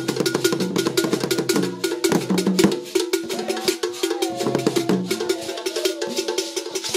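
Hand drums and rapid percussion strikes play a fast, driving traditional dance rhythm. A wavering higher tone joins about three seconds in.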